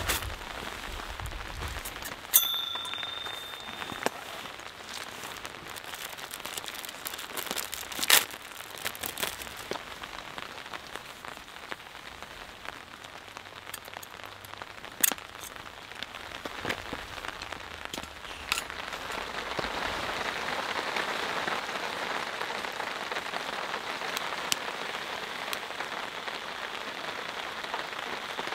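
Steady rain falling on a tarp overhead, growing louder about two-thirds of the way through. A few sharp clicks and knocks from handling and assembling a small Soto gas lantern break through it.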